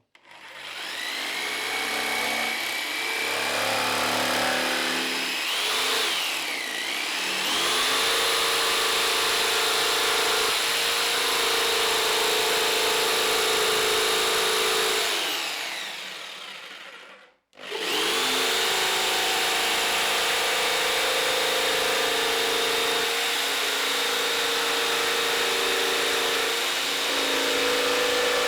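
Electric power saw running and cutting a template out of MDF, its motor whine dipping under load about six seconds in. About halfway through the motor winds down and stops for a moment, then starts again and carries on cutting.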